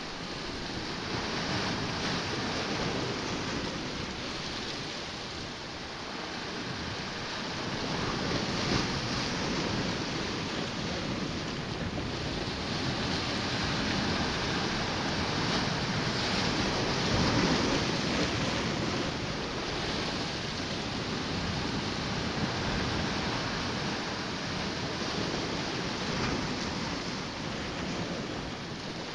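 Sea surf washing against shore rocks, a steady rushing that swells louder now and then, with some wind.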